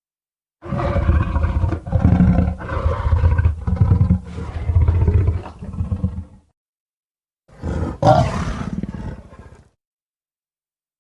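Kaiju monster roar sound effect built from layered big cat roars: a long, pulsing roar of about six seconds, then after a short gap a second, shorter roar that fades out.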